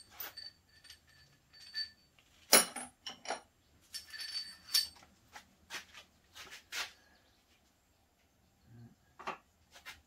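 Metal tools and small hardware clinking and clattering on a workbench as pieces are picked up and set down, some giving a short metallic ring. One sharper knock comes about two and a half seconds in, then a busier patch of clinks a couple of seconds later.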